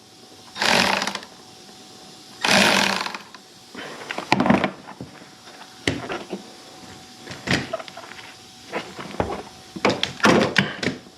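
Two short runs of a handheld power tool, about two seconds apart, followed by scattered clicks and knocks of tools and metal parts, thickening near the end.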